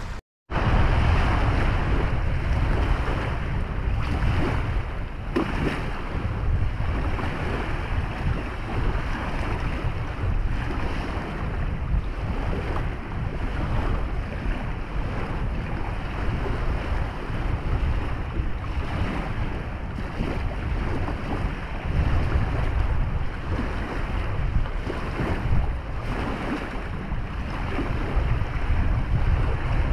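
Wind buffeting the microphone: a steady, rumbling rush, heaviest in the low end, that rises and falls a little throughout.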